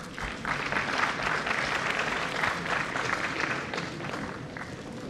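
Audience applauding, loudest for the first few seconds and tapering off near the end.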